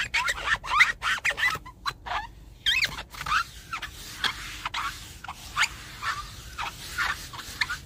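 Foam applicator sponge squeaking as it is wiped across glossy fiberglass, spreading ceramic coating: a quick, irregular run of short squeaks that bend up and down in pitch.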